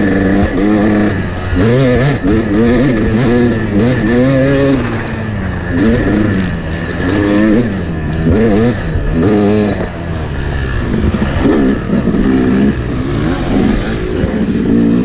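Yamaha YZ250X two-stroke dirt bike engine being ridden hard, its revs climbing and dropping again and again, about once a second, as the throttle is worked on a trail.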